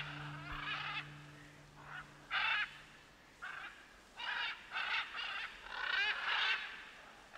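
Scarlet macaws squawking: a run of harsh, rasping calls, about one every half second.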